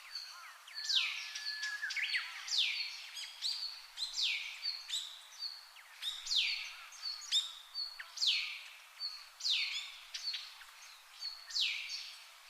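A bird calling over and over, each call a quick downward-sweeping note repeated about every second and a half, with short high whistles in between.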